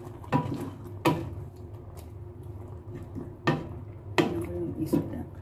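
A wooden spoon stirring fish in coconut milk in a metal pot, knocking and scraping against the pot's side. About half a dozen irregular knocks sound over a steady low hum.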